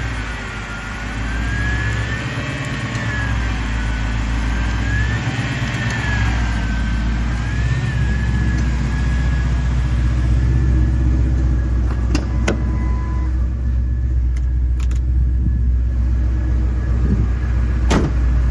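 Ford 5.4-litre two-valve Triton V8 running just after start-up. Its whine wavers in pitch for the first several seconds, then settles to a steady idle. With a dead ignition coil and a fouled plug replaced, it is back to firing on all eight cylinders. A few sharp clicks come in the second half.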